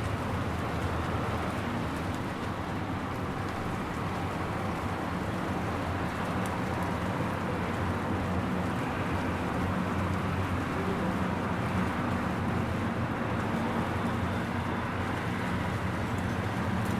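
Steady rain falling in a suburban street, with a low rumble of vehicle traffic that grows louder from about halfway through.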